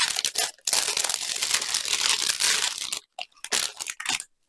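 Clear plastic bag and foil drill packets crinkling as they are handled and shaken out, with short pauses about half a second in and near the end.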